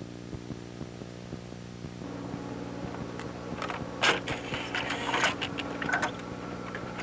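Mechanical ticking over a steady hum, with a burst of louder creaking and scraping noise about four seconds in.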